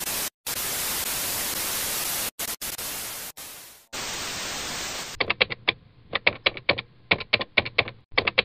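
TV static hiss, broken by a few short dropouts, for about five seconds, then a quick, uneven run of typewriter key clicks: a static-glitch transition and a typewriter sound effect for text typing on.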